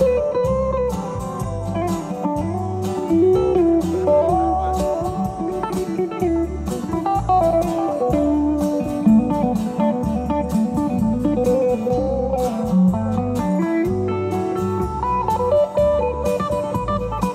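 A live blues-rock band playing an instrumental break: a lead guitar line with bent, gliding notes over a pulsing bass and drums.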